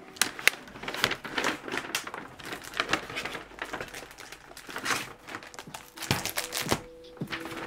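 Kraft paper shopping bag rustling and crinkling as it is handled and items are pulled out, with irregular sharp paper crackles throughout. A few knocks come near the end as a plastic binder is lifted out.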